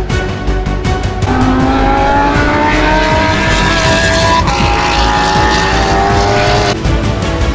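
A racing engine accelerating hard: its pitch climbs, drops once at a gear change about halfway, then climbs again before cutting off, over background music with a steady beat.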